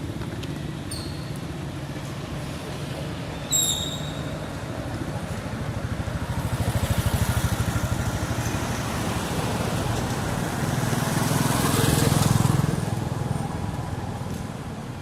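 Street traffic: a steady engine rumble, with vehicles passing close twice, each swelling and then fading. Two short high-pitched chirps come early on, the second one sharp and loud.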